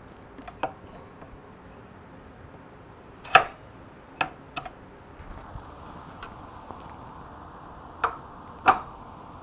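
Sharp metallic clicks and knocks, about six spread over several seconds, the loudest about three seconds in and two close together near the end, as the greased front axle of a Kawasaki ZX-10R is pushed through the fork legs and wheel hub.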